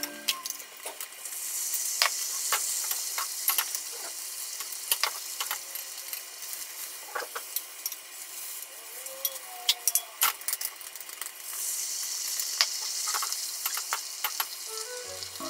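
Beaten egg sizzling in a square tamagoyaki pan over a gas flame, with chopsticks clicking and scraping against the pan. The sizzle swells twice, the second time as a fresh layer of egg goes into the pan near the end.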